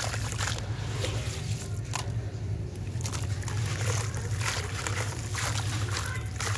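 Soaked, crumbled sand-cement squeezed in the hands and pouring back into a tub of water: sloshing, a gritty trickle and scattered splats and drips. A steady low hum runs underneath.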